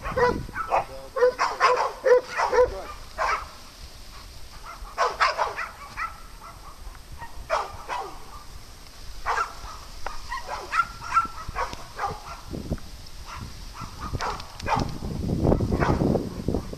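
Dogs barking in short bursts while playing together, with a quick run of barks in the first few seconds and scattered single barks after that. A rushing noise rises near the end.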